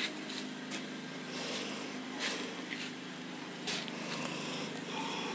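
Brief rustling and brushing sounds, about eight short scrapes, from a handheld phone being moved about, over a steady low hum.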